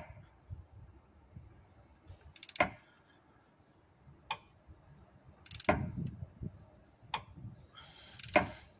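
Ratchet wrench on the crankshaft pulley bolt, turning a Toyota 3MZ-FE V6 over by hand with the timing belt off. It gives a sharp ratcheting click or clunk about every one to two seconds as the handle is swung and reset, some strokes a short rattle of pawl clicks.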